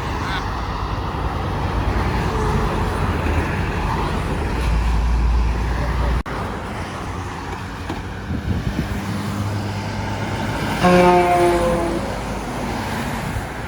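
Highway traffic with heavy trucks rumbling past; about eleven seconds in, a semi truck's horn sounds once for about a second.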